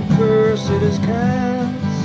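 A man singing held, sliding notes to his own strummed acoustic guitar.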